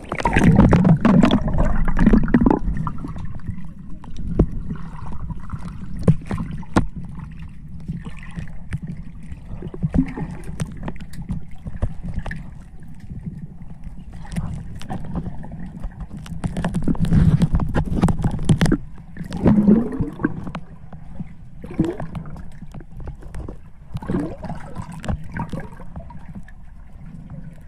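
Water heard through a camera held underwater: a muffled low rumble and sloshing with scattered clicks and knocks, louder for a few seconds at the start and again around two-thirds through.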